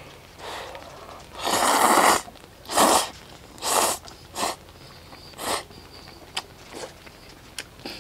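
A person slurping hot jjapagetti (Korean black-bean instant noodles) from a bowl: one long, loud, airy slurp, then four or five shorter ones about a second apart, with a few small clicks near the end.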